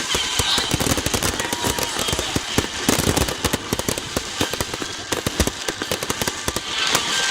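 Fireworks going off in a rapid, dense barrage of crackling bangs, thinning out near the end.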